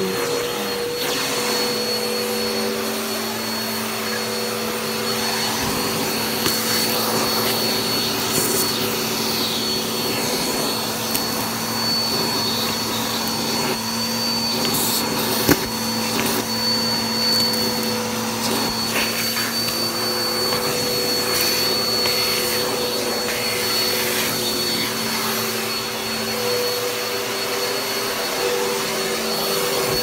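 Vacuum cleaner running steadily over carpet through its hose wand, with a steady high motor whine. One sharp click about halfway through.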